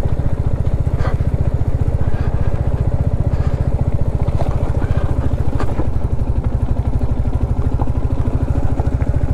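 Royal Enfield Classic 350's single-cylinder engine running at a steady pace on a rough gravel track, its exhaust beat even throughout. A few short knocks and clatter from the bike over the stony ground.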